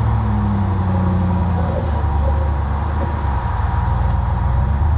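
Rock buggy's engine running steadily at low speed.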